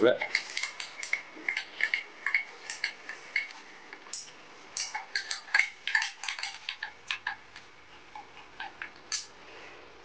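Irregular light metallic clicks and clinks as the Axminster Sieg X1 micro mill's table is wound forward on its handwheel and leadscrew, thinning out and stopping about nine seconds in.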